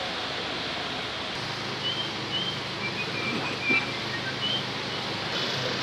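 Steady hiss of room noise in a large hall, with a few short, high bird chirps between about two and five seconds in.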